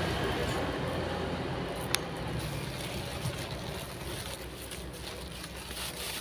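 Road traffic passing, its engine and tyre rumble slowly fading, with a single sharp click about two seconds in.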